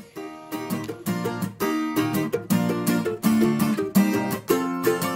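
Background music played on a plucked string instrument: a quick, steady run of picked notes.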